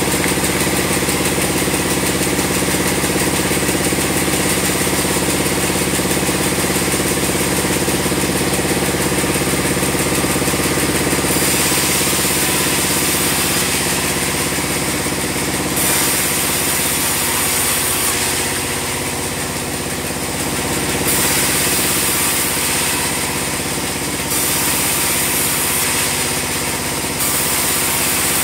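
Band sawmill running: its engine drones steadily throughout. From about halfway, a high hiss comes and goes in stretches of a few seconds.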